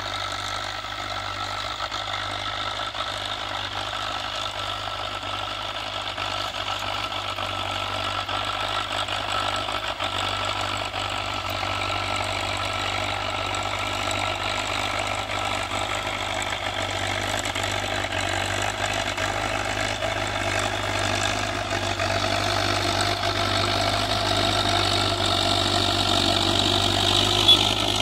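Belarus tractor's diesel engine running steadily under load while pulling a disc harrow, growing gradually louder as it approaches. A single brief knock near the end.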